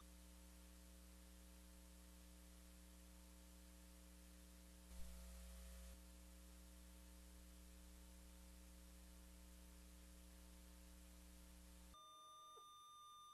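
Near silence: a faint steady electrical hum and hiss that cuts off near the end.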